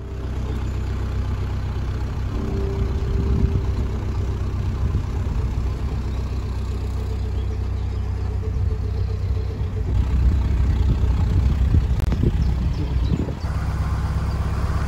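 Narrowboat's diesel engine running steadily at cruising speed, a low even rumble; the sound shifts slightly about 13 seconds in.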